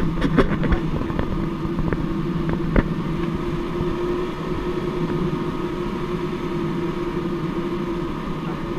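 Steady in-flight cockpit drone of a light aircraft, an even hum of airflow and machinery with a few sharp clicks in the first three seconds.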